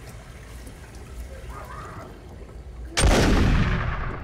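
Low steady rumble, then about three seconds in a sudden loud burst of noise that fades away over about a second.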